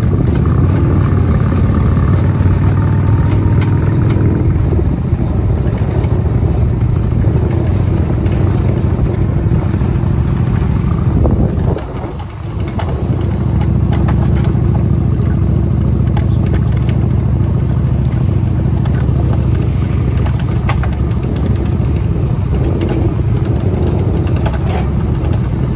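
A motor vehicle's engine running steadily at a low, even pitch, heard from close by while moving. It eases off briefly about halfway through.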